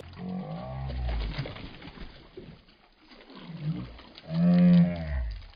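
Two long, low moaning calls, each rising and then falling in pitch; the second, near the end, is the louder.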